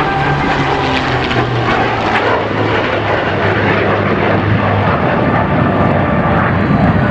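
Formation flypast of an F-35 Lightning II jet with two piston-engine warbirds, a P-51 Mustang and a Spitfire. It is heard as loud, steady engine noise with a low propeller-engine drone underneath.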